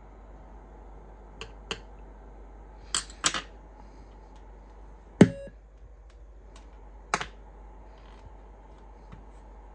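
A handful of sharp clicks and knocks from hands working a small radio kit board, a telegraph paddle key and its plug-in cables. The loudest is a knock about five seconds in, with a brief ring after it.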